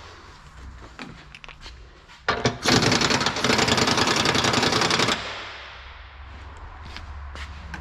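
Pneumatic impact wrench hammering for about three seconds, starting a couple of seconds in and cutting off suddenly. Scattered clicks and knocks come before and after it.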